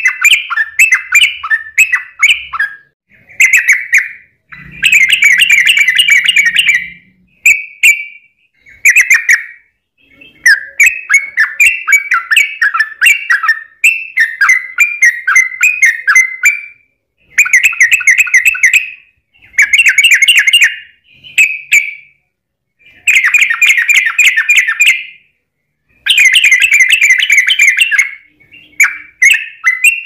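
Yellow-vented bulbul (trucukan) singing its long rolling song: phrase after phrase of rapid chattering notes, each lasting a second or two, with short pauses between.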